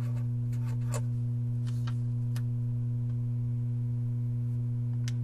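Steady low electrical hum with several overtones, over a few faint ticks and scratches of a marker writing on paper in the first couple of seconds and once near the end.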